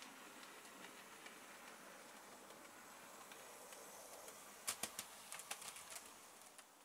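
Faint running of a Bachmann OO gauge model steam locomotive (LNER Robinson O4) passing close. A quick run of sharp clicks comes about five seconds in.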